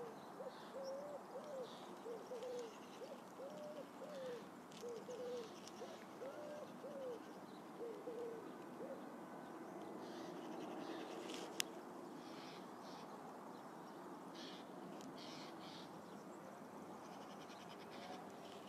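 Faint dove cooing: a run of short, arched low notes repeated in groups, fading out about halfway through. A single sharp click a little past halfway and faint high chirps later on.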